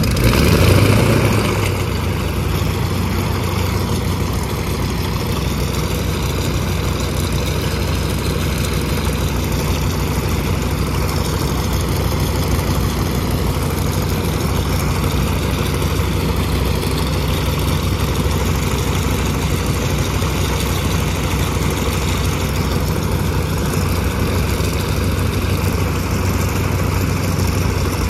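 BA Swallow light aircraft's piston engine catching on a hand-swung propeller: it fires up suddenly, runs up loud for about a second, then settles into a steady idle.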